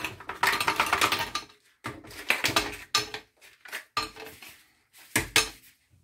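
Ice cubes poured from a bag clattering into a glass blender jar, in four bursts with short gaps between, the first the longest.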